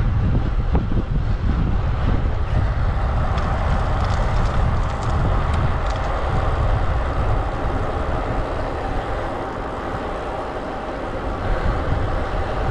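Wind buffeting the microphone of a handlebar-mounted GoPro on a moving road bike, a steady low rumble mixed with tyre and road noise, easing a little near the end.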